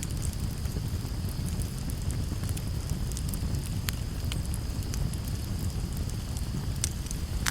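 Wood fire burning: a steady low rumble of flames with scattered sharp crackles and pops, two of them louder, near the middle and near the end, over a thin steady high hiss.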